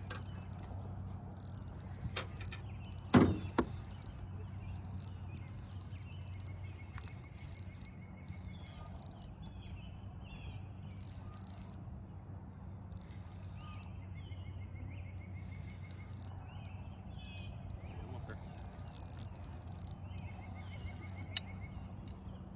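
Frogs trilling in short, evenly pulsed bursts that recur every few seconds, over a steady low hum, with one sharp knock about three seconds in.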